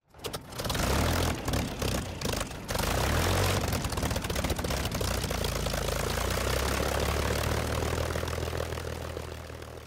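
Propeller-driven aircraft engine running, uneven with short breaks in the first three seconds, then a steady drone that fades out near the end.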